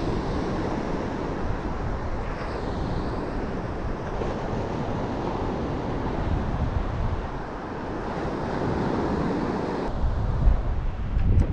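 Wind buffeting the microphone over the steady wash of surf breaking on the beach, with stronger gusts near the end.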